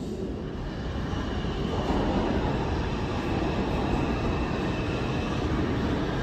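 New York City subway train of R142-series cars approaching the station through the tunnel, its rumble growing louder about two seconds in.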